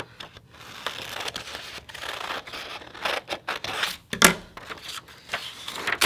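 Scissors cutting through construction paper: a run of crisp snips with paper rustling, and one sharper, louder click about four seconds in.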